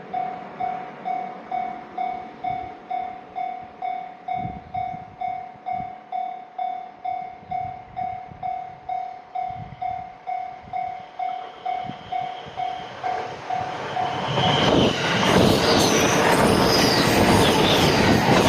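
Japanese level-crossing warning bell ringing its steady kan-kan, about two strikes a second. About thirteen seconds in, a JR Narita Line train arrives and passes with a loud rush of wheels and rail clatter that drowns out the bell.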